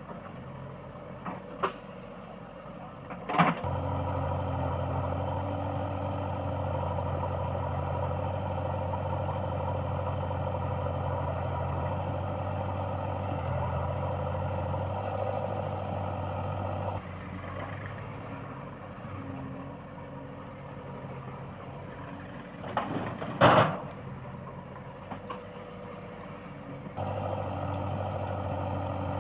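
JCB 3DX backhoe loader's diesel engine working under load, easing off about seventeen seconds in and picking up again near the end. A sharp metallic bang comes just before the engine picks up early on the first time, and a louder bang about two-thirds of the way through.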